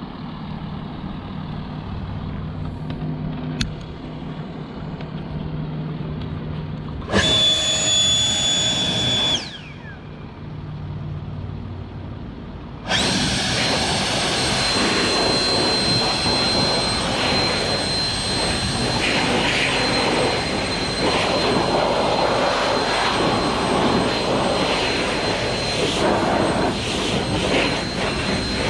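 Leaf blower drying a freshly washed lawn mower, over a low steady hum. About seven seconds in it blasts for about two seconds with a high whine that winds down as it is let off. Near the middle it starts again and runs steadily: rushing air with a constant high whine.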